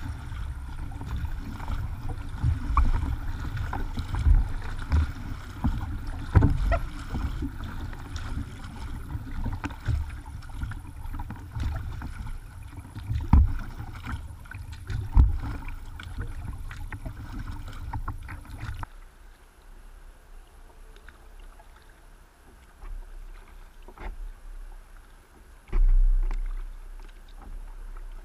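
Kayak being paddled: paddle strokes splashing and dripping over a low rumble of water against the hull, picked up from the kayak's deck. About two-thirds of the way through the rumble drops away and it goes quieter, with scattered drips and a single low thump near the end.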